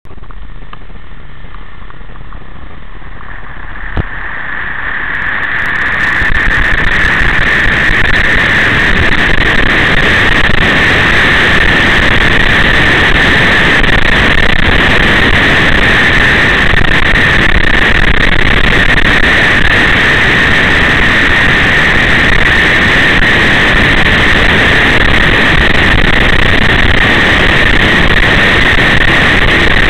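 Loud, steady rushing of engine and wind noise from a moving vehicle, recorded on board. It swells over the first six seconds or so and then holds level, with a single sharp click about four seconds in.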